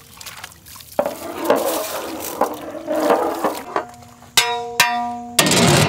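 Thick fish curry sloshing and swirling as a long wooden ladle stirs it in a large metal pot. Near the end a metal pot lid clanks twice and rings as it is lifted off, followed by a loud rush like escaping steam.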